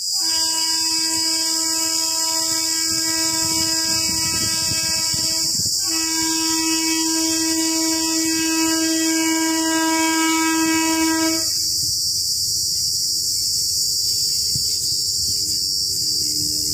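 Indian Railways electric locomotive's horn sounding two long blasts of about five seconds each, with a short gap between them, as the train approaches. After the horn stops, the low rumble of the oncoming train continues under a steady high hiss.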